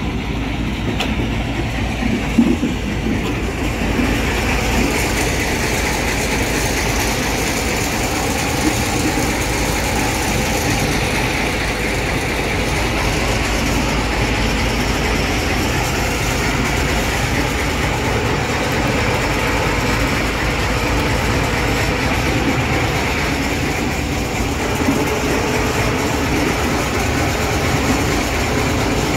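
TU2 narrow-gauge diesel locomotive's V12 diesel running steadily: a continuous engine rumble.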